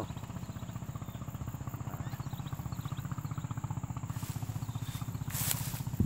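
A small engine idling steadily with a rapid, even pulse, with faint short bird chirps over it and a brief rustle about five seconds in.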